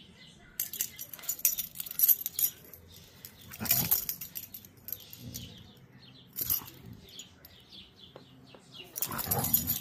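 Huskies playing tug-of-war over a plush toy: bursts of playful growling and grumbling, loudest near the end, amid scuffling.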